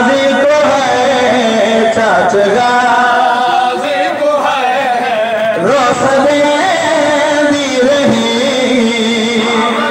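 Male noha reciter singing a Muharram lament into a microphone, in long held notes with a wavering, sliding pitch.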